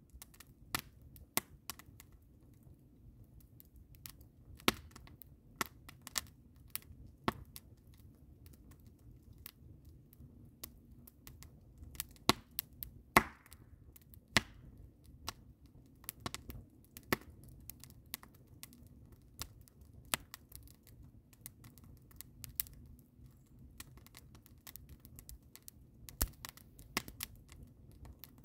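Wood fire of split logs and fresh evergreen boughs crackling: irregular sharp pops and snaps, sometimes in quick clusters and sometimes a second or two apart, the loudest cluster about halfway through.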